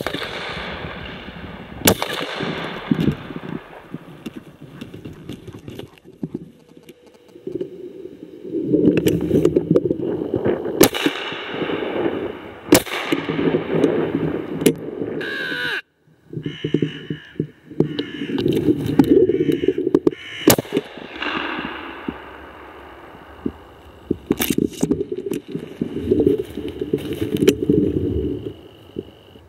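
Shotgun shots fired at crows, one every few seconds, with crows cawing between them.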